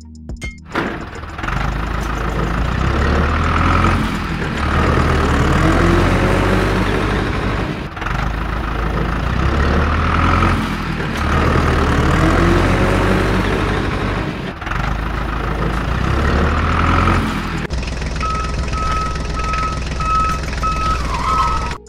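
A vehicle engine running steadily, heavy and truck-like, with pitch rising and falling in places. Near the end a series of regular reversing beeps sounds over it, and the whole sound starts and stops abruptly.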